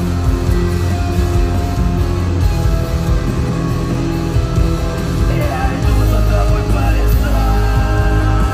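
Live rock band playing an instrumental passage: electric guitar over heavy bass, with the low end swelling about five and a half seconds in.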